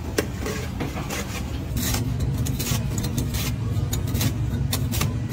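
A steady low machine hum, with sharp crackles and crunches several times over it as a knife slices through the crisp panko crust of a fried pork cutlet.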